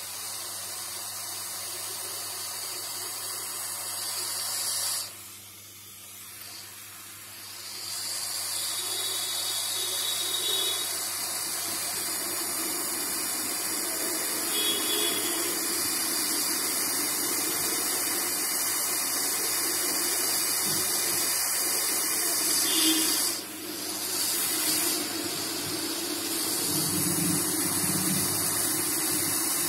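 Hot air rework station blowing a steady hiss of hot air onto a small IC on a phone circuit board, melting the solder paste so the chip seats itself. The airflow drops away for about three seconds about five seconds in, and briefly again later.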